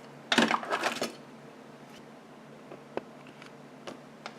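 Handling noise: a short clattering rustle about half a second in, then a few light clicks, as the power adapter and meter test leads are handled for a voltage reading.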